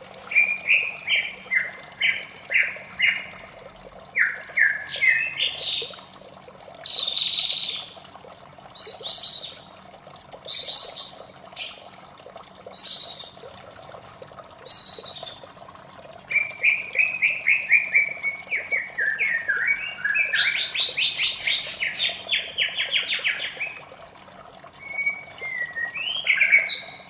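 White-rumped shama singing in the morning: a string of varied phrases of rapid repeated whistled notes, with short pauses between phrases. A faint steady trickle of water runs underneath.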